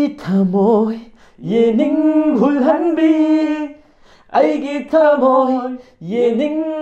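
A man singing unaccompanied, in long held notes grouped in phrases of one to two seconds with short breaks between them.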